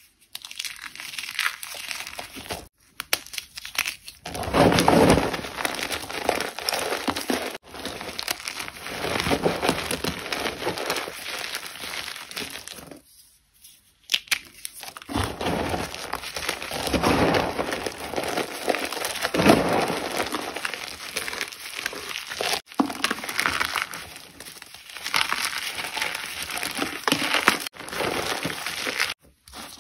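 Gym chalk being crushed, a dense gritty crunching in several takes cut abruptly together, with a short pause about halfway.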